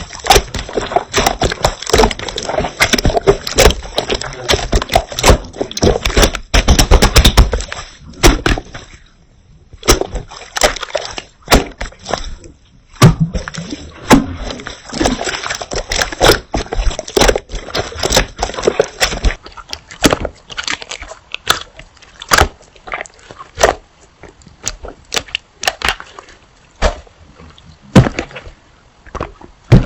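Slime being squeezed and poked by hand, giving a dense run of sticky clicks, crackles and wet squelches. It is busiest in the first several seconds, pauses briefly, then goes on more sparsely.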